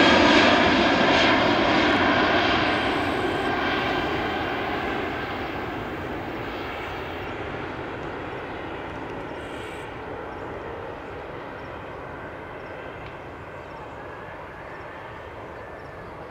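Jet engine noise from a Boeing 747-400 freighter's four engines as it climbs away, fading steadily as it recedes.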